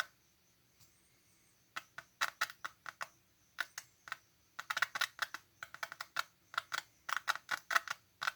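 Loudspeaker fed by a TDA2616Q amplifier from an old TV board giving irregular sharp crackles and pops as the loose negative supply wire makes and breaks contact, a sign that the amplifier is powering up. The pops start about two seconds in and come thicker from about halfway on.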